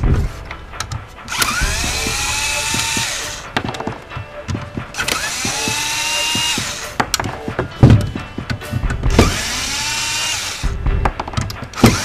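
Cordless drill/driver backing screws out of a car radio's metal side brackets in three runs of about two seconds each. Each run starts with a rising whine as the motor spins up, then holds steady. Short clicks and clunks of screws and metal come between the runs.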